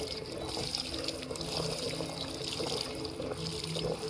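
Old gasoline pouring in a steady stream from the rusty filler neck of a tilted-up 1968 Chevrolet Impala fuel tank and splashing into a plastic drain pan, as the stale fuel is drained out.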